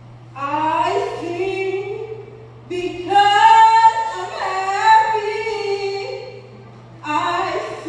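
A woman singing solo in a musical-theatre number, in three phrases with short pauses between them, over a faint steady hum.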